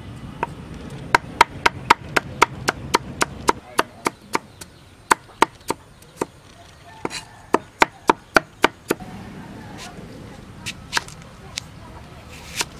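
Meat cleaver chopping carrots on a thick wooden chopping block: sharp knocks about four a second in two quick runs, then a few slower, lighter cuts near the end.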